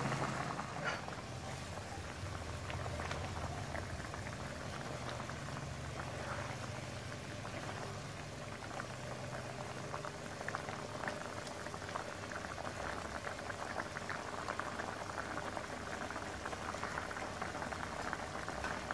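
Pork belly and whole boiled eggs boiling in a dark soy-and-sugar braising liquid in a wide pan. The liquid bubbles steadily with a constant crackle of small popping bubbles.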